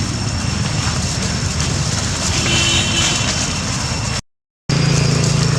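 A steady low mechanical hum with a haze of higher noise. It breaks off into a half-second of total silence about four seconds in, then comes back as a steadier hum.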